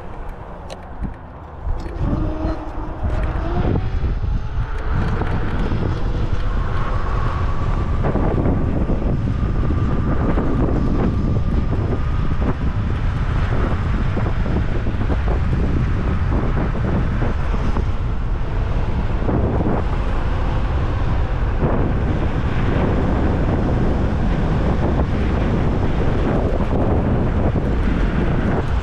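Wind buffeting the microphone over tyre rumble from an Apollo Phantom V2 electric scooter riding along a paved path. In the first few seconds a faint motor whine rises in pitch as the scooter picks up speed, then the wind noise holds steady.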